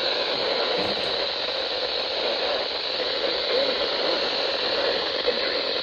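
Steady hiss of radio static with no tones in it. The noisy reception sounds band-limited and muffled, as heard through a radio receiver.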